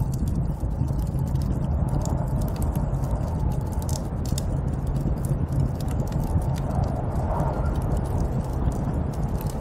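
Snowstorm wind blowing as a steady low rumbling rush, with scattered faint clicks and crackles on top.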